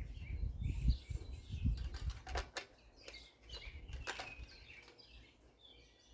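Small birds chirping, with a few sharp clicks. A low rumble fades out about two seconds in.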